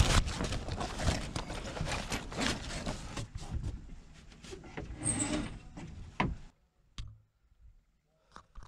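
A jib being hoisted: the metal hanks clatter and slide up the wire forestay and the sailcloth rustles, a dense scraping rattle that stops suddenly about six and a half seconds in. A couple of single clicks follow.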